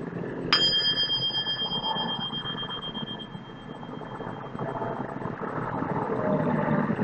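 A single high, bell-like ding about half a second in that rings on and fades away over about three seconds, over a steady background noise that swells near the end.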